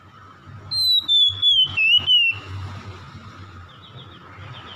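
Oriental magpie-robin giving one long, loud whistled phrase about a second in, falling in pitch with a wavering dip near its end. Faint short chirping notes follow near the end.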